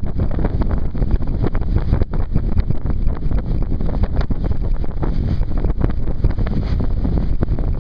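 Wind buffeting the microphone: a loud, irregular low rumble, from a north wind of about 10 to 15 mph.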